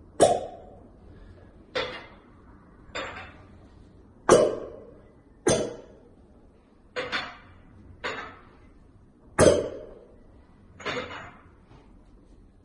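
Cupping cups on skin, making a string of about ten sharp pops of suction or air release, roughly one every second and a half, each with a short ringing decay.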